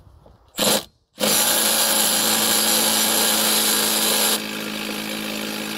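Cordless power tool turning a socket on a strut-brace bolt: a short burst, then running steadily for about three seconds, dropping to a lower level partway through and stopping near the end. The bolt is not coming off, which the worker suspects is because there is a nut on the back of it.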